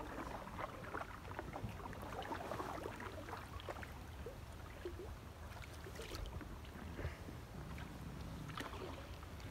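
Canoe being paddled through still floodwater: soft paddle splashes and drips, with scattered small knocks and clicks on the hull.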